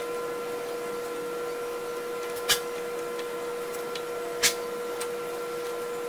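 Steady mechanical hum with a constant high whine, and two sharp clicks about two seconds apart from parts of the vine trimmer head being handled.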